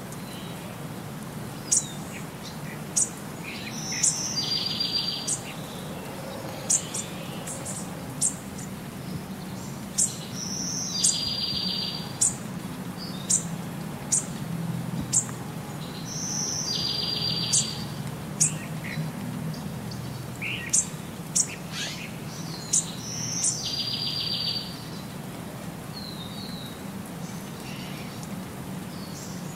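Bird chirps and calls repeating in a loop: sharp high chirps, and a short buzzy trill that comes back about every six and a half seconds, over a faint steady low hum.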